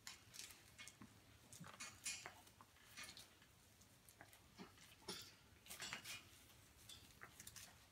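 Near silence with faint, scattered small clicks and rustles from puppies scrambling over their lying mother on paper pads.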